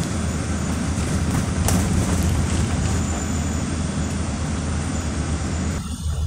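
Steady running noise of a city bus heard from inside the cabin: a low engine hum under an even hiss of road noise. Near the end the hiss cuts off suddenly, leaving the low hum.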